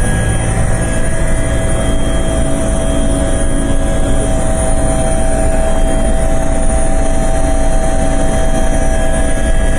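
Loud, steady helicopter cabin noise: engine and rotor running in flight, with a few steady tones over a dense low rumble.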